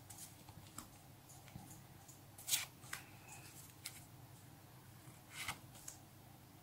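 Paper stickers being flicked through by hand one after another: soft slides and flicks of card against card, with two louder swishes, about two and a half seconds in and about five seconds in.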